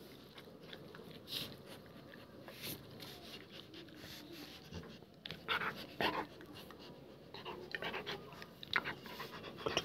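Rottweiler puppy breathing softly, with a few brief scratchy rustles about halfway through and again near the end as it is handled.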